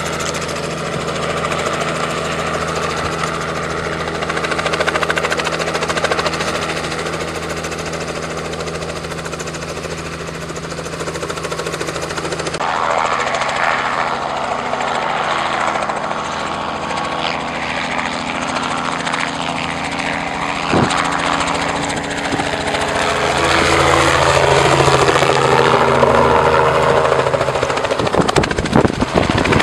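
Light helicopter flying low, its rotor and engine droning steadily. About twelve seconds in, the sound changes abruptly to a drone that rises and falls, and a few sharp knocks come near the end.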